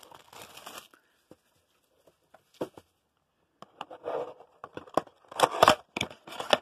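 Cardboard trading-card blaster box handled and torn open by hand: a few scattered taps and scrapes, then bursts of tearing and crackling cardboard in the second half, loudest about two-thirds of the way in, as the top flap is ripped open.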